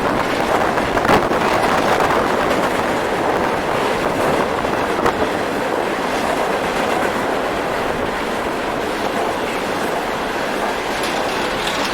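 Empty coal hopper cars of a freight train rolling past: a steady rumble with a couple of faint clicks, mixed with heavy wind noise on the microphone.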